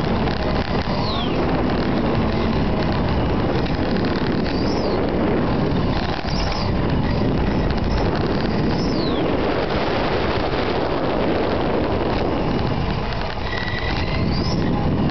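Radio-controlled model car driving on asphalt, heard from a camera mounted on the car: a steady, loud, noisy rush of motor, drivetrain and tyres, with a few brief high whines that glide up or down.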